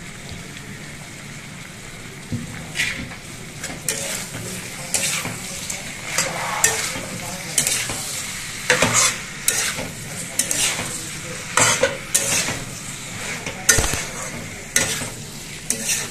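Metal spatula stirring and scraping pork and fresh bamboo shoots around a wok over a steady frying sizzle. The sizzle runs alone at first; from about three seconds in, irregular scrapes of the spatula against the pan come roughly once a second and are the loudest sounds.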